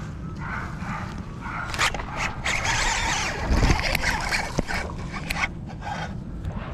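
A hand handling the body-worn camera: rubbing and knocking right at the microphone, loudest in the middle few seconds, over a steady low rumble.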